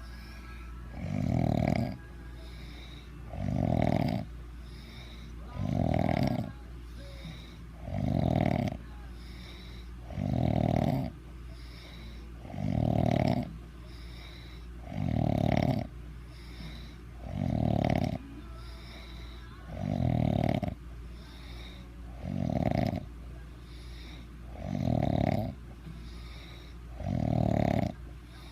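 Heavy, regular snoring: about twelve snores, one a little over every two seconds, each under a second long.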